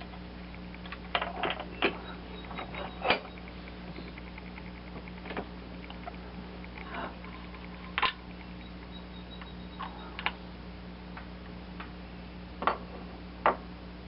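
Scattered small clicks and taps of small parts and hand tools being handled on a workbench, the loudest about three seconds in, at eight seconds and twice near the end, over a steady low hum.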